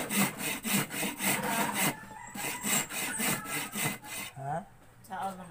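Hand saw cutting through wood, in quick back-and-forth strokes about three a second, which stop about four seconds in.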